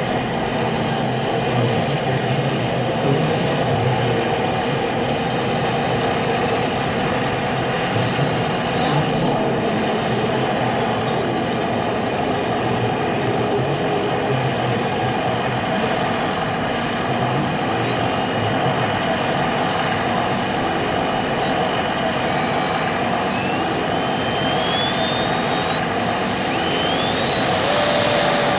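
Large RC scale model aircraft engines running on the runway: a steady rushing engine noise with whining tones, and several rising whines in the last few seconds as an engine spools up.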